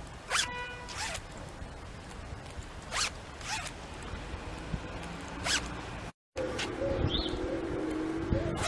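Zip on a hooded sweatshirt being pulled, about six short, quick zipping strokes a second or two apart.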